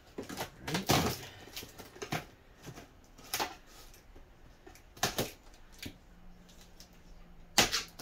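Knife cutting the packing tape along a cardboard box seam: several short slicing strokes, a second or more apart, the loudest near the end.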